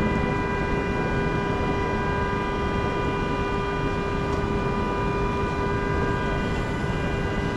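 Steady noise inside a stopped vehicle in heavy rain, with a constant hum.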